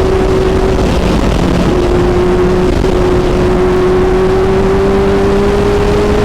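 Kawasaki Z900's inline-four engine running hard through an SC Project exhaust while the bike is ridden at speed. Its note is steady and climbs slowly and evenly as the bike gains speed in a high gear.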